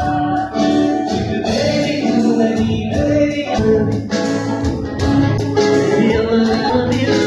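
Music with voices singing together over a plucked string instrument.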